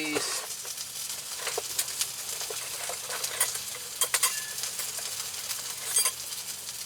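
Food sizzling steadily in a hot frying pan, with scattered small pops and crackles.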